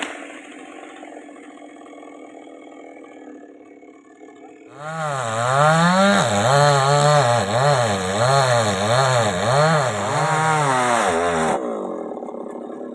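Chainsaw engine idling. About five seconds in it opens up to full revs for about seven seconds, its pitch dipping and rising about once a second, then drops back to idle.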